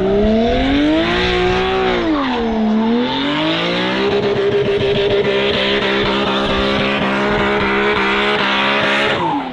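Nissan Silvia S15 drift car with a 2JZ engine drifting. Its revs rise, drop and climb again, then are held high and steady for the last five seconds or so while the rear tyres spin and screech. The sound fades near the end.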